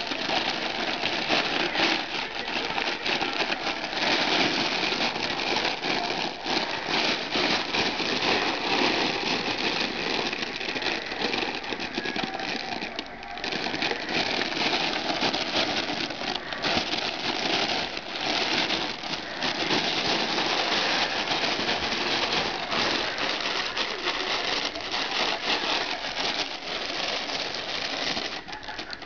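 A cat's crinkle tunnel rustling and crackling almost nonstop as a puppy plays with it, with a short lull about halfway.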